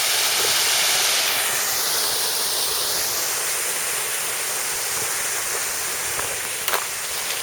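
Steady rush of a waterfall, a dense hiss of falling water, with a brief shift in its tone a couple of seconds in and a few faint clicks near the end.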